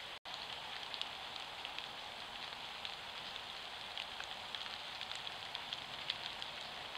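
Steady hiss from a Browning Dark Ops Pro XD trail camera's microphone, with scattered faint irregular ticks. It cuts out for an instant about a quarter-second in.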